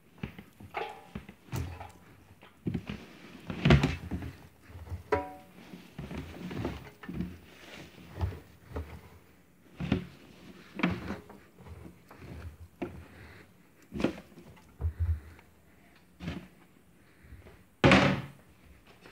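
Irregular thunks and knocks of laundry and a plastic laundry basket being handled while clothes are loaded into a front-loading washing machine's drum, with a loud knock near the end.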